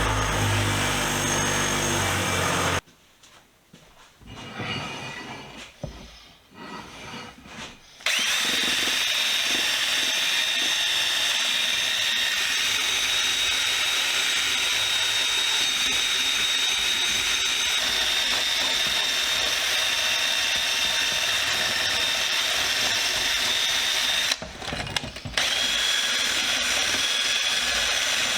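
Power-tool wire wheel spinning against a rusty steel pipe wrench, stripping rust and old paint with a steady scrubbing hiss and a high whine. A lower machine hum runs for the first few seconds, then stops for a quiet spell before the wire wheel starts about eight seconds in. It breaks off briefly about three-quarters of the way through.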